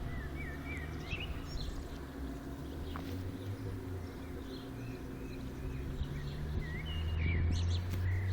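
A low, steady droning hum, the unexplained 'strange sound in the sky', growing a little louder about seven seconds in. Birds chirp over it.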